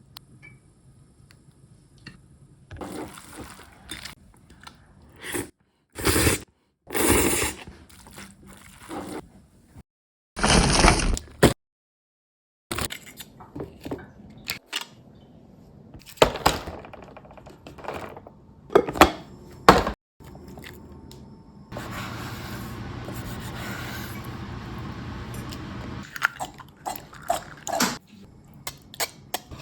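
Kitchen food-preparation sounds: a series of short clatters and scrapes from utensils and containers being handled, then a steady rush for about four seconds in the second half.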